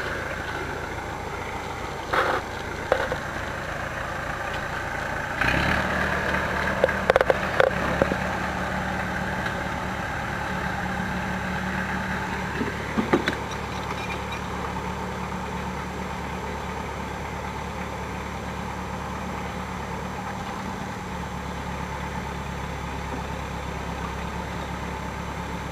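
Massey tractor engine running steadily while the tractor drives and tows, its note stepping up about five seconds in, with a few brief knocks and clanks from the machine over the first half.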